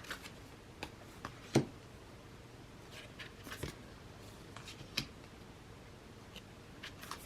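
Oracle deck cards being handled: scattered light taps and clicks with soft rustling, the sharpest tap about one and a half seconds in.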